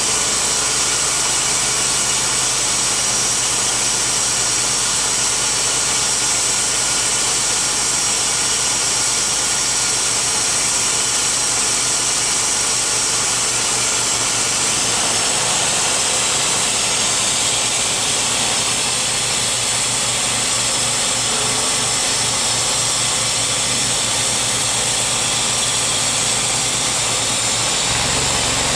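Timberking B-20 portable bandsaw mill running steadily, its engine driving the band blade while the saw head feeds along a white oak log. The engine note shifts about halfway through and again near the end.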